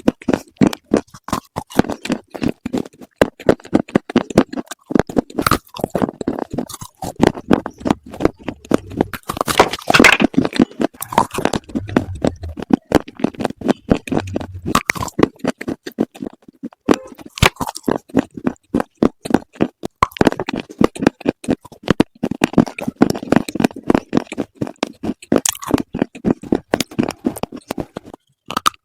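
Close-miked chewing and crunching of hard, brittle slate bars: a dense stream of sharp cracks and crunches, with a few brief pauses between bites.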